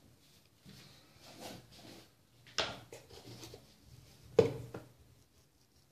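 Two sharp knocks about two seconds apart, the second louder, amid light handling noise as things are moved about on a tabletop.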